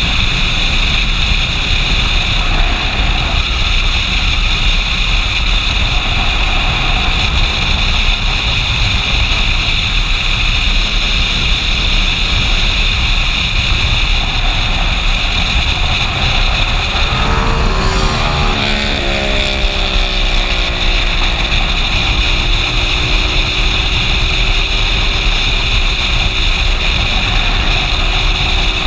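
Motorcycle riding at road speed: steady wind rush over the microphone with engine and tyre rumble underneath. A little past halfway, an engine note slides in pitch and then settles into a steady hum.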